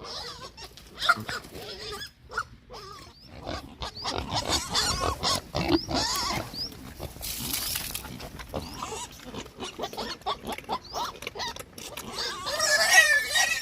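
Hungry pigs grunting repeatedly, with a sharp knock about a second in and higher-pitched squeals near the end.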